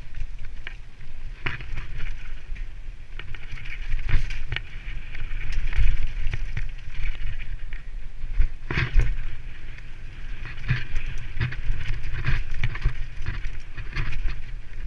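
Mountain bike riding fast down a dirt forest trail: tyres rolling over dirt and stones, with the bike rattling and sharp knocks over bumps, the hardest about four and nine seconds in. A constant low rumble of wind buffets the rider-mounted microphone.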